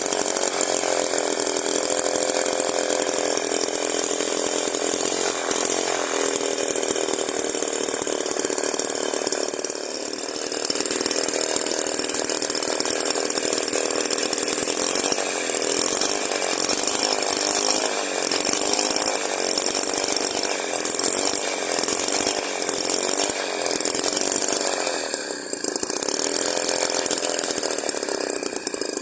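Miniature 6 cc two-stroke engine running fast with a high, steady note. Its pitch wavers up and down through the second half and dips briefly twice.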